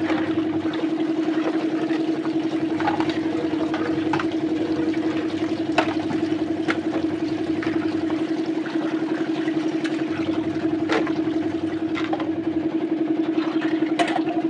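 A small motor running steadily with a fast, even hum, with scattered sharp clicks and clatter on top.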